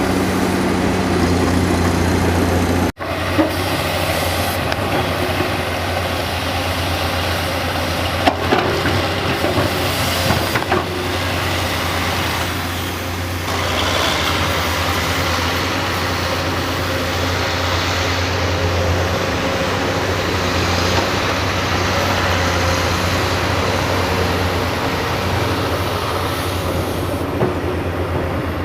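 Excavator's diesel engine running steadily with a low drone, with a few sharp knocks of metal parts about a third of the way in.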